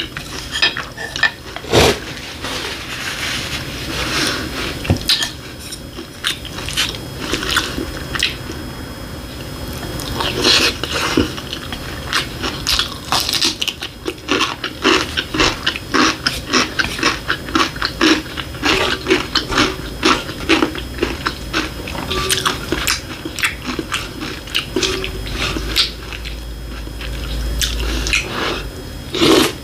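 Close-miked eating: chewing, then crisp, rapid crunching of altari (ponytail radish) kimchi through the middle, at about three crunches a second.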